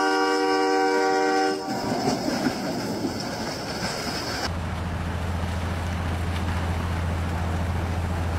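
A locomotive horn sounds a steady chord for about a second and a half, then gives way to the heavy rushing noise of a train-pushed rail wedge snowplow blasting snow aside as it passes. A few seconds later the sound changes abruptly to a steady low drone under the rushing snow.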